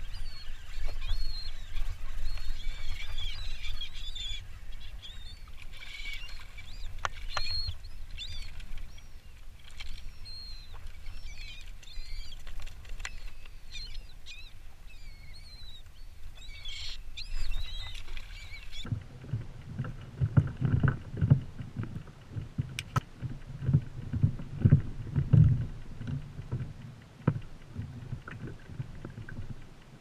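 A flock of seabirds calls over wind rumble on the microphone. About two-thirds of the way through the sound cuts to water slapping and sloshing against a plastic kayak hull.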